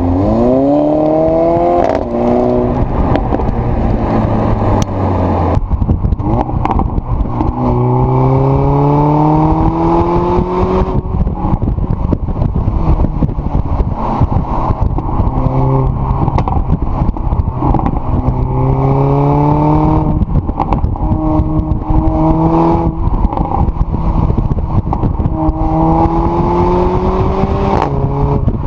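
Mercedes-AMG CLA 45's turbocharged 2.0-litre four-cylinder heard at the exhaust while driving hard. The engine note climbs steadily several times over, with short breaks and drops in pitch between the pulls as it shifts gear, over steady wind and road noise.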